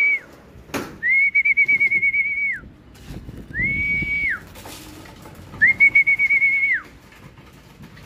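Four long whistles at one high pitch, each sliding up into the note and dropping off at its end; the second and fourth warble rapidly while the first and third are held plain. This is a pigeon fancier's whistled call to bring racing pigeons down into the loft to feed. A single sharp click falls between the first two whistles.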